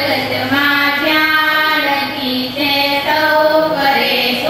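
A group of girls singing a prayer together into microphones, in long held notes.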